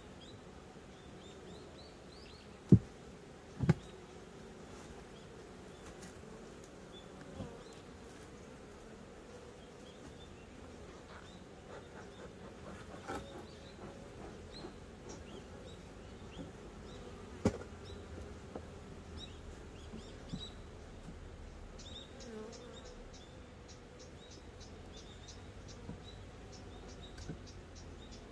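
Honeybees buzzing around a hive, a faint steady hum, broken by a few sharp taps, the loudest two about three seconds in and another past the middle. Faint high chirps come and go, and near the end a quick run of high ticks.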